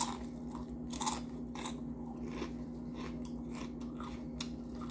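Close-up crunching and chewing of Doritos tortilla chips loaded with toppings: sharp crisp crunches, the strongest as the first bite goes in and about a second later, then smaller crunches as the mouthful is chewed.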